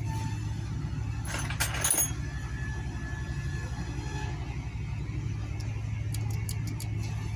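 A steady low motor hum with a fast even pulse runs throughout. About a second and a half in come a few bright metal clinks of parts or tools being handled, and near the end several light ticks.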